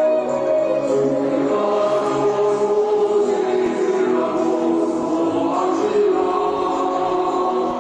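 Choral music: a choir singing slow, held notes, used as the soundtrack for a dressage freestyle.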